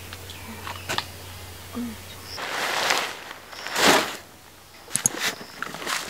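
Handling sounds of a folding camp chair being opened: a sharp click about a second in, then rustling and a louder brushing swish near the middle, with a few light clicks later.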